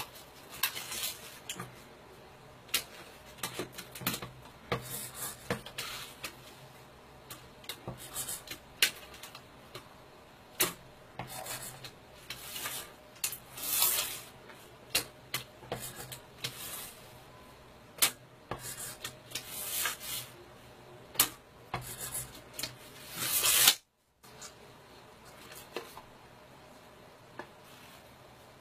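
A tape measure with a pencil fixed to it being slid and turned along the edge of a board, giving irregular clicks and short scraping rubs. The sound cuts out for a moment near the end, just after the loudest scrape.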